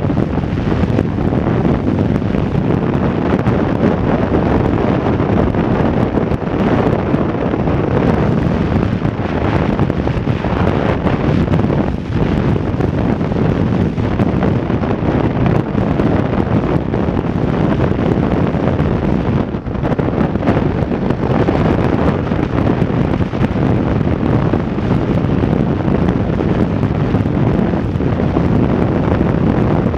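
Loud, steady wind buffeting a helmet camera's microphone on a motorcycle at highway speed, with the bike's engine and tyre noise underneath.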